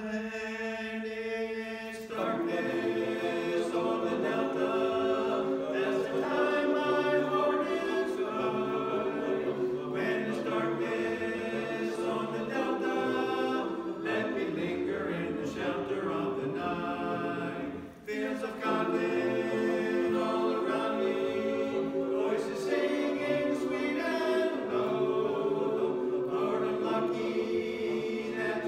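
Barbershop chorus singing a cappella in close four-part harmony. It opens on a held chord for about two seconds, then moves on through the song, with a short breath about two-thirds of the way through.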